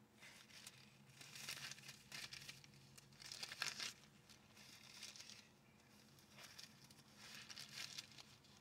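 Faint rustling of thin Bible pages being turned by hand, in a few short bursts.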